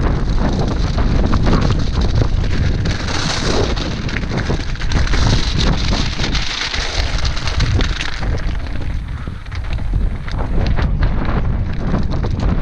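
Wind buffeting the action-camera microphone in a loud low rumble, over a Commencal Meta SX mountain bike rolling fast down loose gravel and stones, its tyres crunching and the bike rattling with many sharp clicks.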